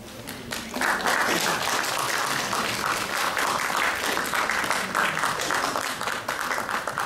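Audience applauding: a few scattered claps at first, then full, steady applause from about a second in.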